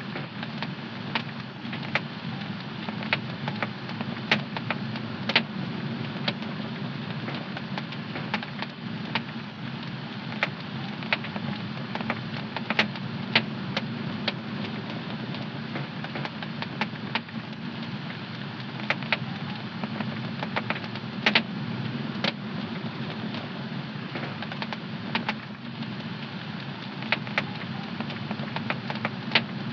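Fire burning in a home fireplace, crackling with many irregular sharp pops and snaps over a steady low rush of burning.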